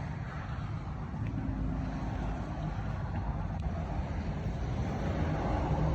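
Steady low outdoor rumble with no distinct events, growing a little louder near the end.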